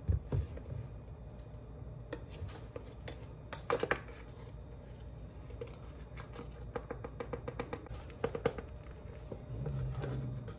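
Small clicks and crinkling of a plastic bag of powdered sugar being handled and scooped from with a measuring cup, with a quick run of clicks about two-thirds of the way through.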